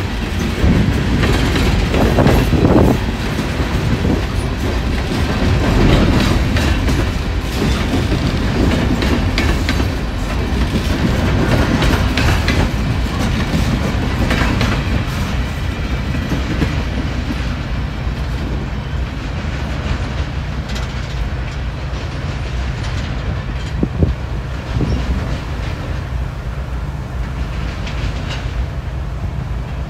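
Coal hopper cars of a freight train rolling past close by, with wheels clacking over the rail joints. The sound eases off over the second half as the last cars go by, with one sharp knock about two-thirds of the way through.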